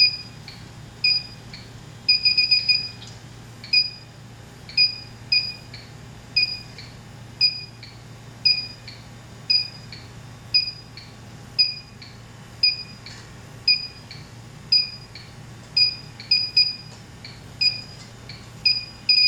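Inficon D-TEK Select infrared refrigerant leak detector beeping: short two-tone beeps repeating irregularly about once or twice a second, with a quick run of beeps about two seconds in, as it picks up R-410A leaking from the coil.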